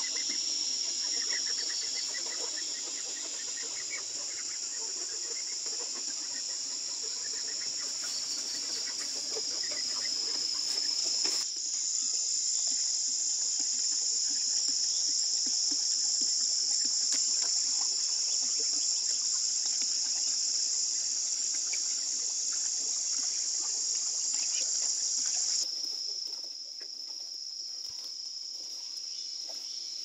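Insect chorus in a forest: a steady, high-pitched buzzing drone. It changes abruptly about a third of the way in and again near the end, with faint chirps in the first seconds.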